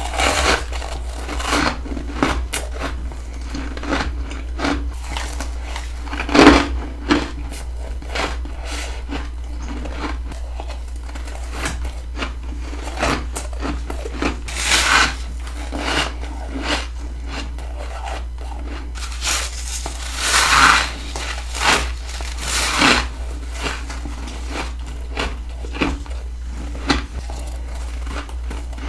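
Close-miked bites and chewing of freezer frost: a string of crisp, crunchy crackles, with a few longer, louder crunching bites. A steady low hum runs underneath.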